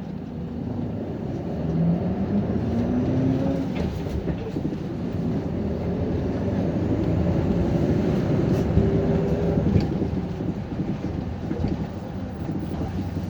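City bus engine and drivetrain heard from inside the cabin as the bus pulls away from a stop, the pitch rising twice as it picks up speed.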